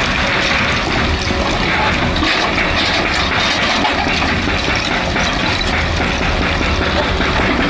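Excavator working: a loud, steady rushing noise over the low, even rumble of its engine.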